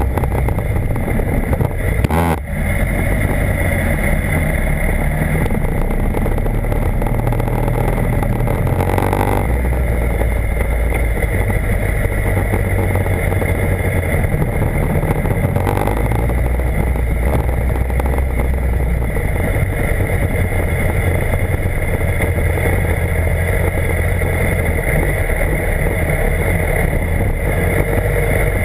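BMW HP4's inline-four engine running under way, its note shifting up and down in steps with throttle and gear changes, over a steady rushing noise. The sound dips briefly about two seconds in.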